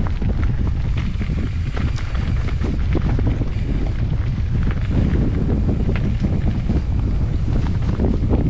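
Strong wind buffeting an action-camera microphone: a loud, steady low rumble, with scattered short clicks and rattles over it.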